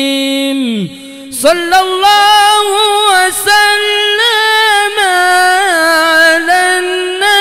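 Solo male voice singing Arabic devotional chant through a microphone and sound system. A long held note slides down and breaks off about a second in. After a brief pause, a new phrase begins with wavering, ornamented turns on the held notes.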